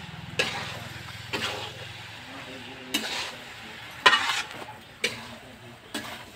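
Metal spatula scraping and stirring frying food in a black kadhai, about six strokes roughly a second apart, over a faint steady sizzle.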